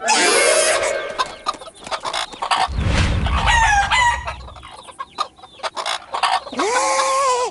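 A flock of cartoon hens clucking and squawking, with a low rumble in the middle. Near the end a toy trumpet starts a long held blast.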